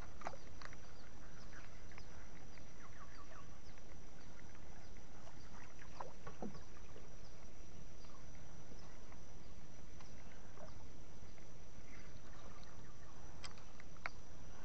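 Small fishing boat moving slowly over calm water: a steady low rumble with scattered faint water splashes and clicks, under a thin steady high tone.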